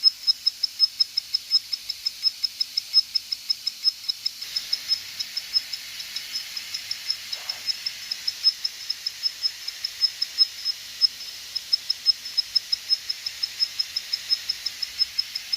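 Faulty SAS hard drive, opened, making a steady run of short high-pitched chirping clicks several times a second: the weird noise that marks the drive's fault.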